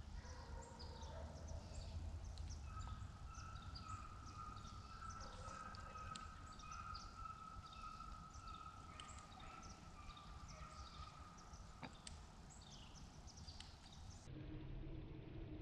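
Faint outdoor ambience: many small birds giving short, high chirps over a low rumble, with a long steady mid-pitched tone through the middle.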